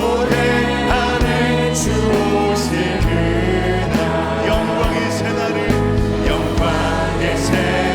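Contemporary worship music from a live praise band, with singing voices over the instruments.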